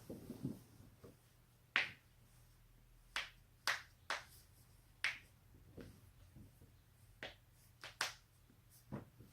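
Joints being cracked: a string of about ten short, sharp pops at uneven intervals, some louder and some fainter.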